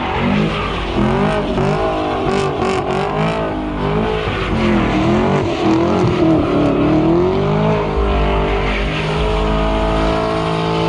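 A car doing donuts: its engine revs up and down again and again as the rear tyres spin and squeal, then holds at steady revs about eight seconds in.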